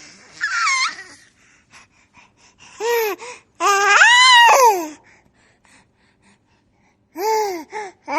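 Baby laughing: high-pitched, rising-and-falling squeals broken by short breathy gasps, with a lull of a couple of seconds before a last squeal near the end.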